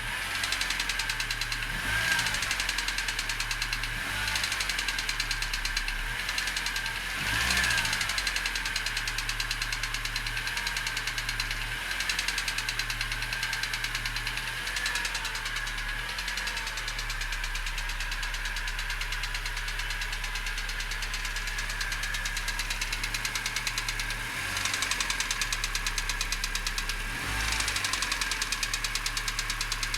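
ZMZ-406 four-cylinder petrol engine in a GAZ-3110 Volga idling with a steady rhythmic knock, briefly revved several times and dropping back to idle. The owner says the knock is absent cold and comes on once the engine is warm, at idle and when the throttle is released.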